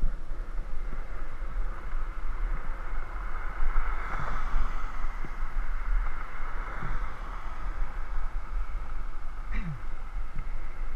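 Wind rumbling on the microphone of a camera riding along a concrete road, over a steady hiss of tyre and road noise.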